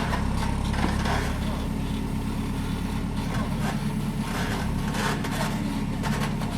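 Bobcat skid-steer loader's diesel engine running steadily as it pushes and smooths dirt, with intermittent scraping.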